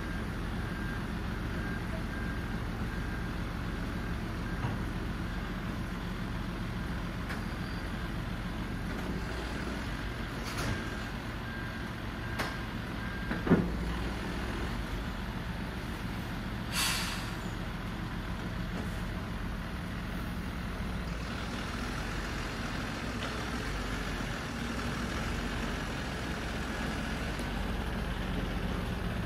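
Mercedes-Benz Atego 1524 truck's diesel engine idling steadily, with a repeated beeping tone from a warning beeper that stops about halfway through. A sharp clunk follows, then a burst of air-brake hiss, and the engine runs under load as the heavily loaded truck creeps forward.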